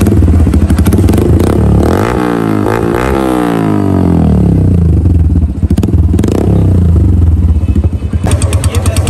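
Yamaha YBR125's single-cylinder four-stroke engine running through an aftermarket SC Project slip-on muffler. It idles, is revved once about two seconds in so the exhaust note climbs and falls back, swells briefly again midway, and settles into an even idle putter near the end.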